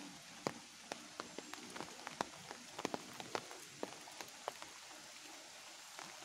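Light rain falling: a steady hiss with irregular sharp ticks of drops landing close by.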